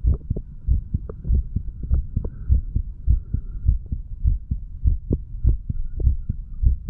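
A 35-year-old man's heart beating: steady lub-dub heart sounds about once a second, heard at the chest. The owner takes them for valves opening and closing normally.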